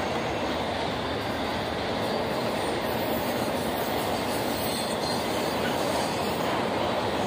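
Intermodal freight train's cars rolling across a steel girder bridge: a steady, unbroken noise of wheels on rail.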